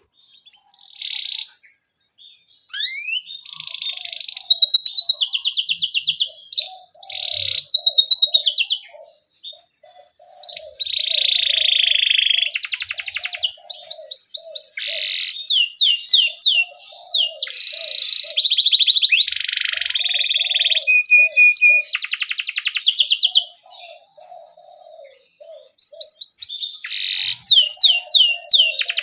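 Domestic canary singing vigorously in long phrases of fast rolling trills and rapid chirps, with short breaks between phrases. A fainter, lower chirping runs underneath.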